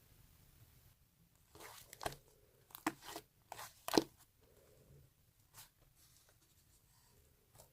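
Fluffy clay slime being squeezed and pulled apart by hand, giving a quick run of soft crackles and sticky snaps with one sharper pop about four seconds in, then only a few faint clicks.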